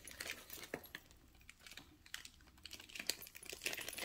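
Faint, irregular light clicks and taps of small jewelry pieces being handled and picked through, coming more often toward the end.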